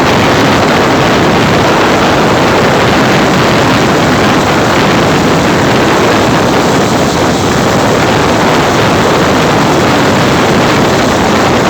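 Loud, steady rushing noise of strong wind blowing over the microphone.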